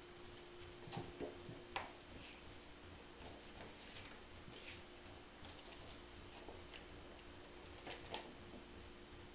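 Faint rustling and scratching of a ferret rolling and scrambling on bath towels, with a few light clicks and taps, the loudest about two seconds in and near the end. A steady faint hum runs underneath.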